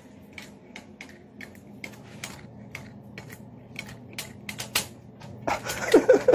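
A cat biting at a hard plastic rod, its teeth clicking on it about twice a second. Near the end a louder, wavering cry comes in.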